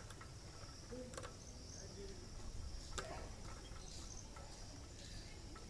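Faint, steady high-pitched insect chirring, like crickets, with a few scattered faint clicks.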